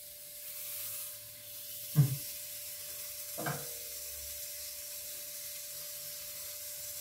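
Lahmacun sizzling steadily on the hot plates of an electric contact grill as the raw dough and meat topping are laid on. Two brief louder sounds break in, about two and three and a half seconds in.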